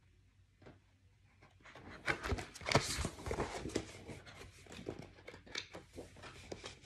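Picture-book pages being turned and the book handled close to the microphone: paper rustling and crinkling mixed with small knocks and clicks, starting about two seconds in and loudest just after it starts.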